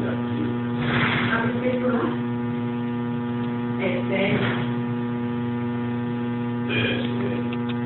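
A steady electrical mains hum made of many evenly spaced tones, with a few brief soft scuffing noises about a second in, around four seconds in and near the end.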